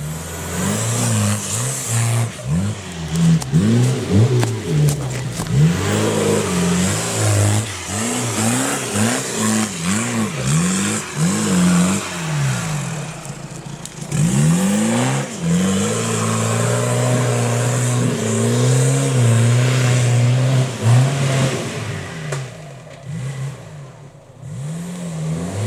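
Off-road competition vehicle's engine revving up and down again and again under bursts of throttle, then held at steady revs for several seconds, easing off near the end.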